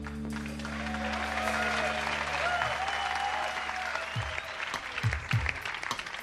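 Concert audience applauding and cheering as a held keyboard chord dies away. In the last couple of seconds a few low thumps come in under the applause.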